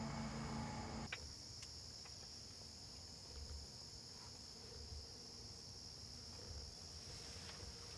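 Steady high-pitched chorus of crickets. A low steady hum runs for about the first second and cuts off with a click.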